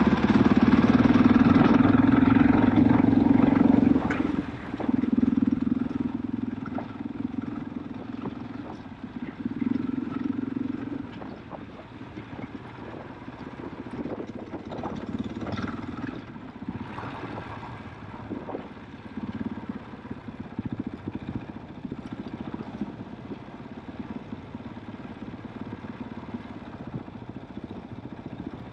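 KTM off-road motorcycle engine running: a loud steady note for the first four seconds, then quieter, rising and falling with the throttle, with small knocks and clatter over rough ground.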